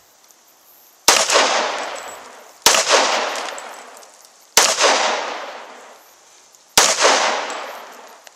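Four single gunshots from a firearm, spaced about one and a half to two seconds apart, each trailing off in a long echo.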